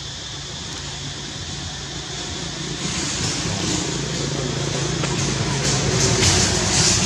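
A motor vehicle running: a steady low engine hum with hiss that grows louder from about three seconds in.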